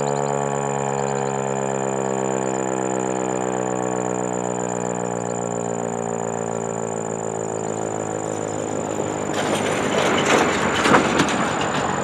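An American Signal T-128 rotating outdoor warning siren winding down after its test, its pitch falling slowly and steadily. About nine seconds in, a burst of rushing noise with a few sharp bumps rises over it for a couple of seconds.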